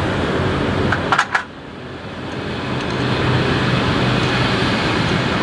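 Steady low mechanical hum of running machinery, with a few sharp clicks about a second in, after which the sound briefly drops away and swells back up.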